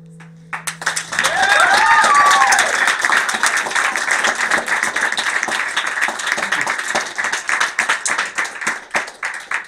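A small audience applauds the end of a song. The clapping starts about half a second in over the fading last note, with a voice whooping a second or so later, and thins out near the end.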